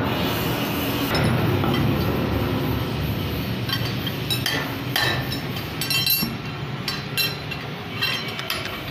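Light metallic clinks and taps, coming more often from about halfway, over a steady low workshop rumble.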